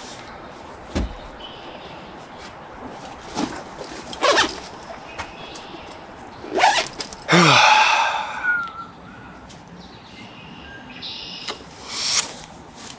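Rustling, knocks and a loud swish from a backpack being picked up and swung onto the back. Birds chirp in the woods behind it.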